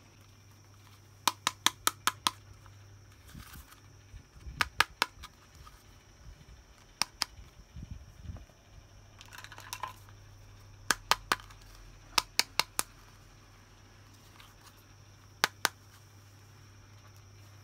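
Small plastic toy pieces being handled, tapping and clicking against each other in quick clusters of sharp clicks, with a couple of brief soft rustles in between.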